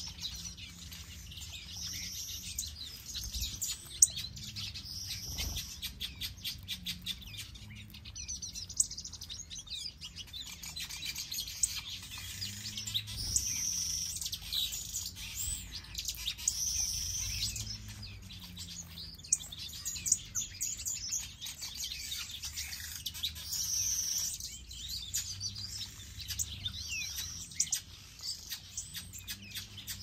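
Mixed aviary finches, European goldfinches and shaft-tail finches among them, chirping and twittering continuously, with many short high calls overlapping and a brighter burst of twittering every couple of seconds. A sharp tap stands out about four seconds in.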